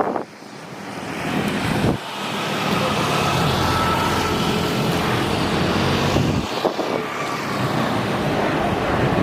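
Jet airliner engines running as an aircraft passes, swelling about two seconds in and holding steady, with a faint high whine over a low rumble.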